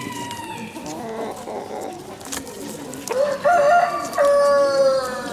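A black Sumatra rooster crowing about three seconds in: a short broken first syllable, then a long drawn-out note that sinks slightly in pitch. Before it there is only faint background murmur.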